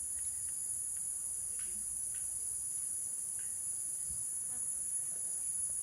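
Steady high-pitched chorus of insects, with a few faint ticks.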